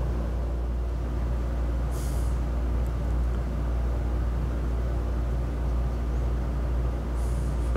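Steady low hum of running machinery, with two short hisses, one about two seconds in and one near the end.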